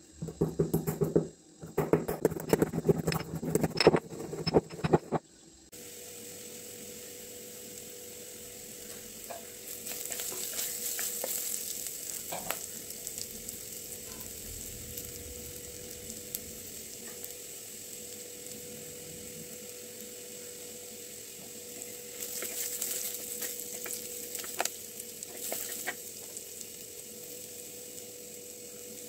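For the first five seconds, a pestle pounds black peppercorns in a stone mortar with rapid, irregular knocks. The sound then gives way to sliced onions sizzling in oil in a clay pot, a steady hiss with a few louder stretches and light stirring strokes.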